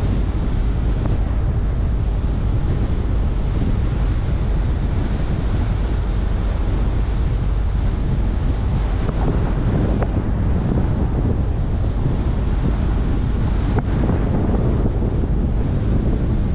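Steady wind noise buffeting the microphone of a car driving at speed, mixed with the low rumble of tyres on the road.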